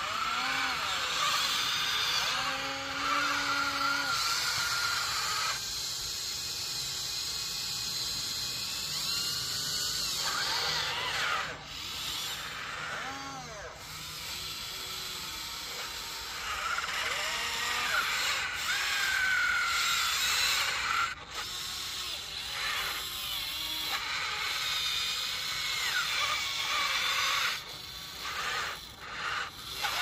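Electric drive motors and plastic-and-metal gearboxes of a Huina radio-controlled construction model whining and grinding. The whine comes in short runs, its pitch rising and falling as the motors speed up and slow down.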